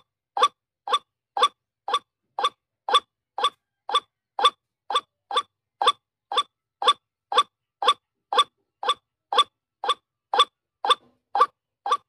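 White-breasted waterhen calling, presented as a wild female's call for luring: short, sharp, identical notes repeated evenly about twice a second.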